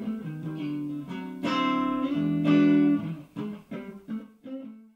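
Guitar music: plucked notes and a few strummed chords, loudest in the middle, thinning to single picked notes near the end before cutting off suddenly.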